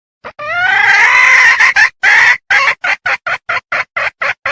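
Red junglefowl hen calling: a short note, then one long drawn-out call rising in pitch, then a run of short clucks at about three a second. It is a hen in breeding condition calling to draw males, the call used as a lure.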